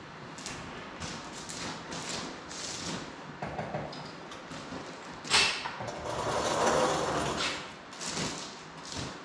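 Chain hoist on a jib crane lowering its hook, the chain rattling and clicking as it pays out. A sharp clank comes about five seconds in, followed by a louder stretch of rattling lasting about two seconds.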